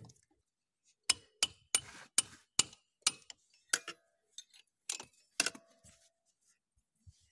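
A series of about a dozen sharp metallic clicks and clinks, irregularly spaced, a few of them ringing briefly, as metal tools and parts are handled during engine work.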